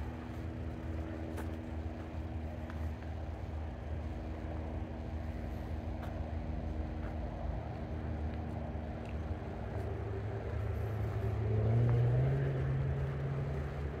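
A motor vehicle's engine running with a steady low rumble; about eleven seconds in its note rises in pitch and grows louder as it speeds up or passes close.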